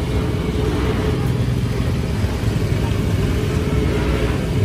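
Steady low rumble of street traffic, motor vehicles running in the background.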